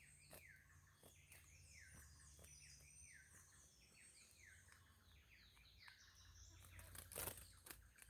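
Chestnut-bellied seed finch (curió) singing faintly: a run of repeated falling whistled notes, about two a second, with a few sharp clicks near the end.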